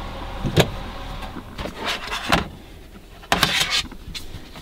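Kitchen handling sounds: scattered light knocks and clatter of plates and cabinet being handled, with a louder noisy burst about three seconds in.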